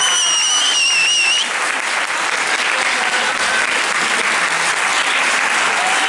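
Audience applauding steadily, with a shrill high note held above the clapping for the first second and a half.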